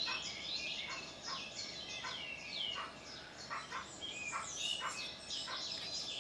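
Several small birds chirping and singing in the background, a dense run of short quick calls and falling whistles overlapping one another.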